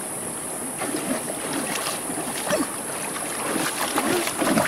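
Water sloshing and splashing as someone wades through a shallow stream and handles stones, over the steady sound of the flowing stream; the splashes grow louder near the end.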